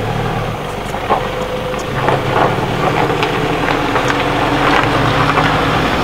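An engine running steadily at idle, a low even drone, with a few faint clicks over it.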